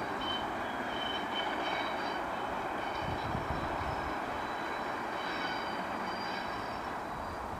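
Class 37 and Class 20 English Electric diesel locomotives running coupled together, a steady engine and rail noise with faint high-pitched tones that come and go.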